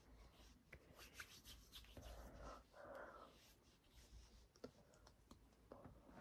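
Faint sounds of hands working skincare into the face: palms rubbing together and patting and pressing on skin, with a few soft taps.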